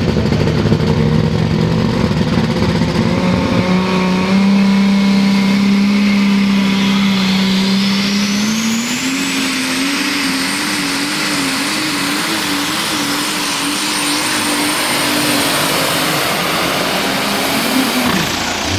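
Turbocharged pulling-tractor engine at full throttle hauling the sled. Its note climbs about four seconds in and again near nine seconds, then wavers up and down. A turbo whine rises to a high steady scream and holds for several seconds. The engine note falls away just before the end.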